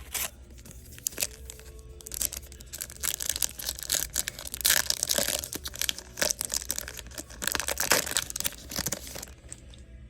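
Foil trading-card pack wrapper being torn open, crinkling and tearing in a run of noisy rips over several seconds.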